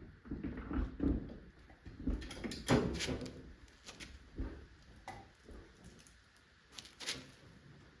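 Irregular clunks, knocks and rattles of hardware and parts being handled, with a sharp knock about three seconds in and another near the end.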